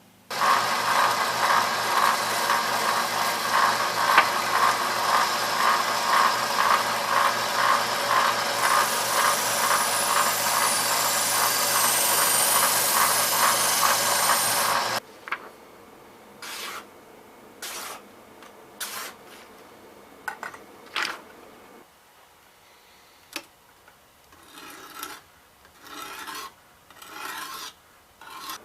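Knife blade being sharpened on a whetstone in a fixed-angle jig: fast back-and-forth scraping strokes, a few per second. About halfway through it drops suddenly to quieter, single strokes with short pauses between them.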